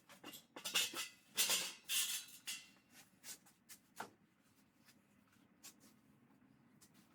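Workshop handling noises: a quick run of light clicks and short scraping rubs over the first couple of seconds, then only a few faint clicks.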